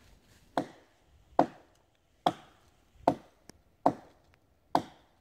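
A hatchet chopping into a fallen log: six sharp, evenly paced blows, about one every 0.8 seconds.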